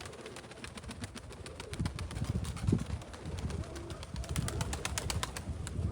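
Wind buffeting the microphone with a low rumble, and many scattered light clicks and ticks.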